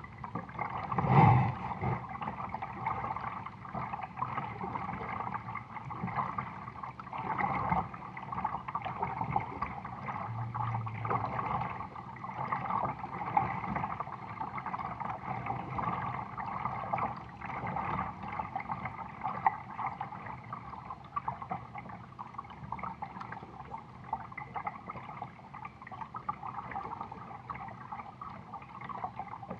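Water gurgling and lapping against a plastic kayak hull as the boat moves, with one louder knock on the hull about a second in.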